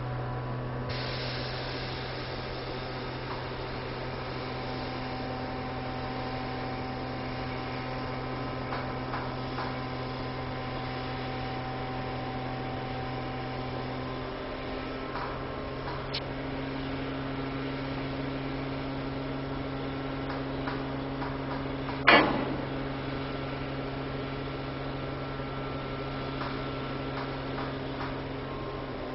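Steady electric-sounding hum with a few faint steady tones above it, one of them stepping up in pitch partway through, and a single sharp knock about twenty-two seconds in.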